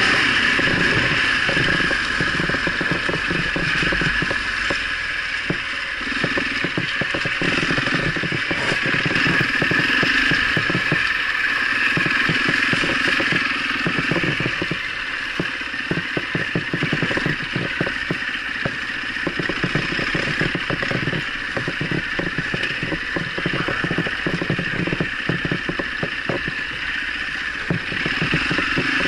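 Husaberg enduro motorcycle engine running under way, its pitch and level dipping and rising a few times with the throttle. Continuous clatter and knocks from the bike jolting over a loose rocky track.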